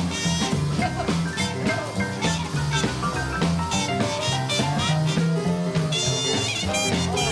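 Live jazz band playing a boogie-woogie number, with double bass, drums and trumpet over a steady swinging beat. The trumpet comes through with high held notes about six seconds in.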